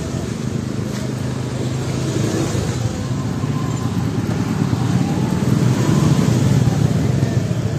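Small motorbike and scooter engines running close by in street traffic, a steady low hum that grows louder in the second half as a bike passes.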